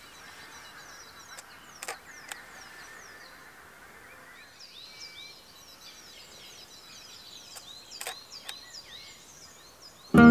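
Small birds chirping over and over in the trees, more thickly in the second half, with a few sharp clicks about two seconds in and again near eight seconds. Acoustic guitar music starts right at the end.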